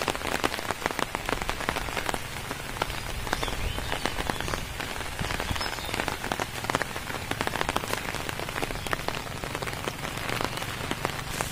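Heavy, torrential rain pouring down onto waterlogged fields and standing water: a steady, dense patter of countless drops.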